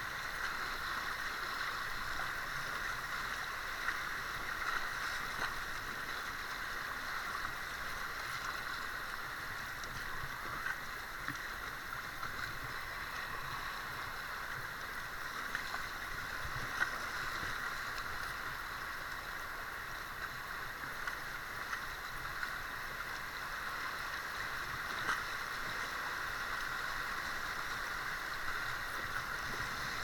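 River water rushing steadily over rapids around a small inflatable paddle boat, with a few brief sharp splashes or knocks scattered through.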